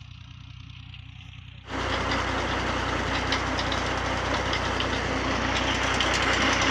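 A tractor engine running steadily, driving a tubewell pump, with water gushing from the pump's outlet pipe. It is faint at first and jumps abruptly louder just under two seconds in.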